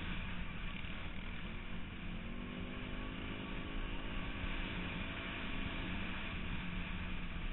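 Off-road vehicle's engine running under throttle, its pitch rising about two seconds in, over a steady noisy rush.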